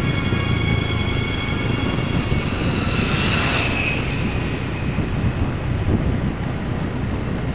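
Motor vehicle running with steady engine rumble and road noise; music with sustained tones fades out about two and a half seconds in, and a rushing swell of noise rises and falls about three seconds in.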